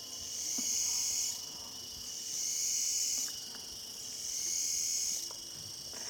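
Night insect chorus: a high buzzing that swells and fades in steady cycles about two seconds apart, each swell lasting just over a second.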